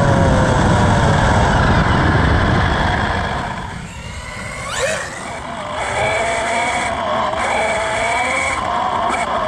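Rage RC RZX 1/6-scale 2WD brushless RC buggy on 6S driving on pavement: the electric motor's high whine over wind and tyre rumble. The whine falls in pitch over the first two seconds as the buggy slows. It quietens briefly, sweeps sharply up in pitch a little before the midpoint as the throttle opens, then holds steady.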